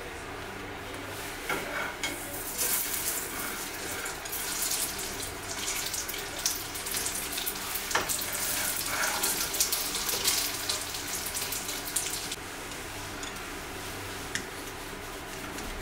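A dumpling sizzling and crackling in hot oil in a frying pan, with scattered pops. The sizzle starts about two seconds in and cuts off abruptly about twelve seconds in.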